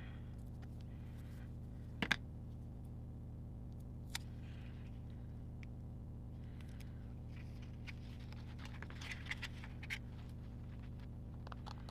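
Scissors cutting a paper sticker: a sharp double snip about two seconds in, a single snip about two seconds later, then small clicks and paper rustles near the end, over a steady low hum.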